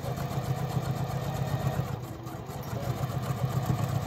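Electric sewing machine running at a slow, even speed, its needle stitching a seam through layered cork and fabric.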